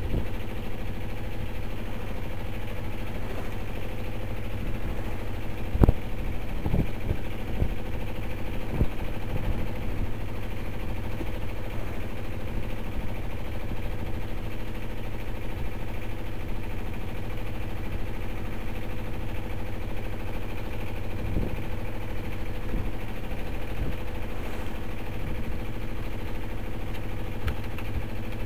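A 26 ft yacht's engine running steadily under way, with a few knocks, the loudest about six seconds in.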